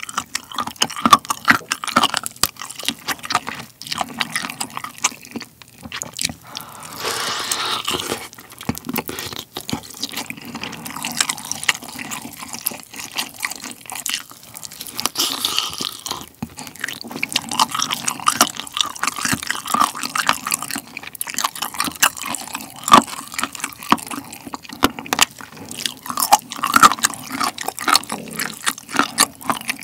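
Close-miked eating of a sauced roast chicken drumstick: bites into the meat, then steady chewing full of quick sharp mouth clicks.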